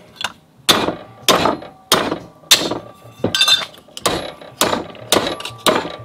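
A hammer beats a 1/8-inch aluminium bar clamped in a bench vise, bending it into shape. There are about ten blows at a steady pace of roughly two a second, each with a short metallic ring.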